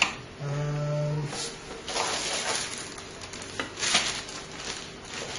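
A person's low hummed "hmm" held for about a second, followed by rustling and a few light clicks and knocks as computer parts and cables are handled.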